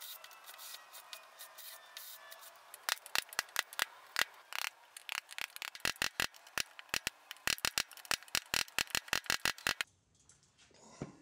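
Wood chisel paring out a notch in plywood: an irregular run of sharp clicks and cracks as chips split away, starting about three seconds in and stopping suddenly near the end.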